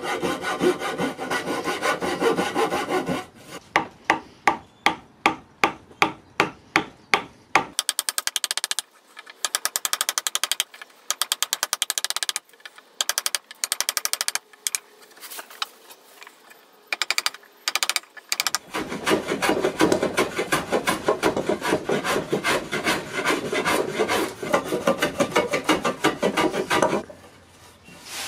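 A thin-bladed hand saw cutting into a wooden post in quick strokes, then a wood chisel paring across the post in long runs of rapid scraping strokes that raise shavings.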